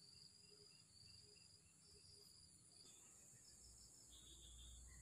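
Near silence with faint insect chirping: a steady high-pitched trill, and short chirps repeating about three times a second over the first couple of seconds.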